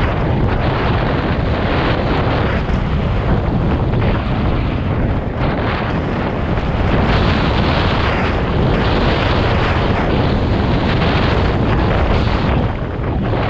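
Wind buffeting an action camera's microphone as a snowboard rides downhill, with the board's steady rush through fresh powder underneath. A dense, continuous rumbling hiss that dips briefly near the end.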